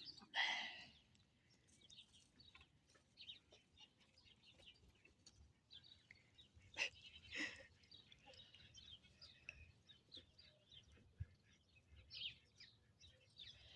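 Faint chickens clucking among small birds chirping, with a louder call about half a second in and two more about seven seconds in.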